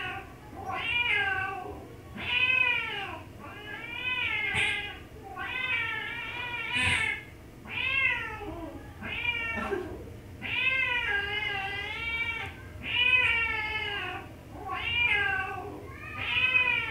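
Cat meowing over and over, about a dozen separate meows, each rising and then falling in pitch.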